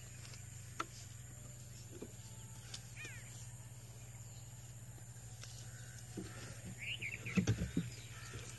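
A steady low drone, like a running engine, throughout. Birds chirp a few times, and there is a brief cluster of heavy knocks and thuds about seven and a half seconds in.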